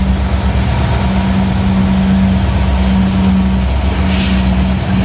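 Union Pacific diesel-electric locomotive passing close by at low speed, its engine running with a steady low drone. It is towing the dead Big Boy 4014 steam locomotive, whose wheels and running gear rumble along the rails. A short hiss comes about four seconds in.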